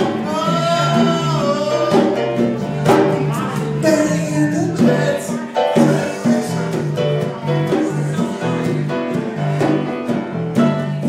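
Live band playing a song: singing over guitar and conga drums, with a steady beat.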